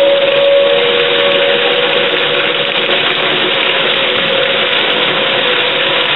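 Heavy rain pouring down in a steady, loud hiss during a severe thunderstorm. Beneath it a steady, slowly drifting tone is heard, the outdoor storm warning siren still sounding in the distance.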